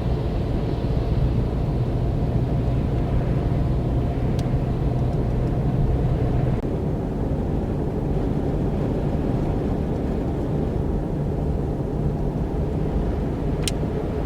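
A motor vehicle running steadily, with a constant low engine hum under road and wind noise.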